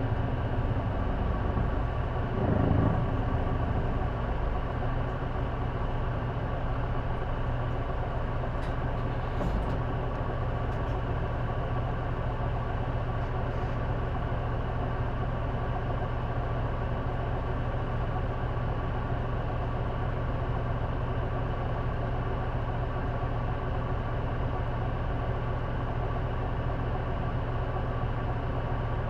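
J-Bus city bus engine running steadily at an unchanging pitch, heard from inside the passenger cabin, with a brief louder noise about two and a half seconds in.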